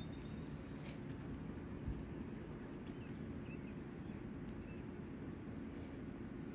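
Steady low hum, with a few faint short bird chirps and a soft knock just before two seconds in.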